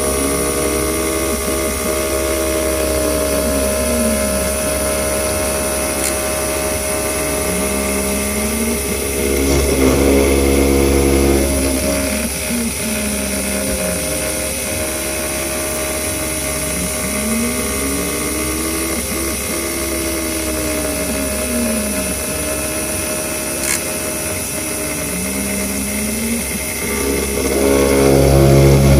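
CNC milling machine cutting a connecting rod with an end mill: a steady multi-tone machining whine, with a lower whine that rises and falls in pitch every few seconds. The cutting grows louder for about two seconds around ten seconds in, and again near the end.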